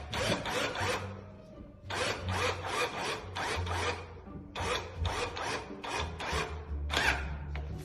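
Hand filing or rasping on wood: several runs of quick back-and-forth scraping strokes with short pauses between them, while a lock's fitting is worked to size.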